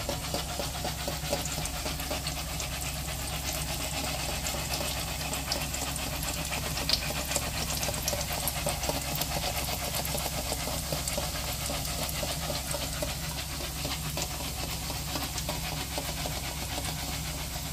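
Pottukadalai (roasted split chickpeas) deep-frying in hot oil in a wire spider strainer: a steady sizzle of fine crackles.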